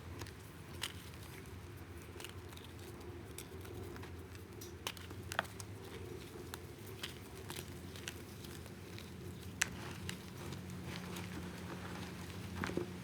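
Reformed gym chalk balls being crushed, giving scattered sharp cracks and crumbling crackles, the loudest about five seconds in and again near ten seconds, over a low steady hum.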